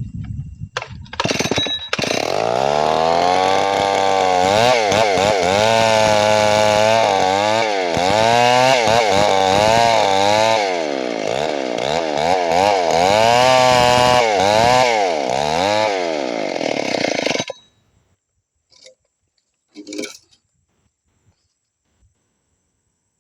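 Two-stroke chainsaw running and cutting wood, its engine pitch dropping and rising again and again as it slows under load and revs free. It cuts off abruptly near the end, followed by a couple of brief light knocks.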